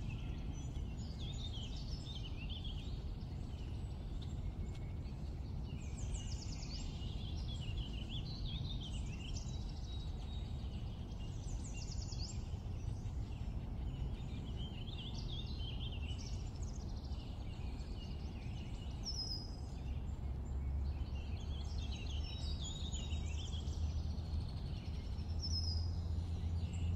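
Birds singing: short bursts of quick chirping phrases recurring every few seconds over a steady low rumble.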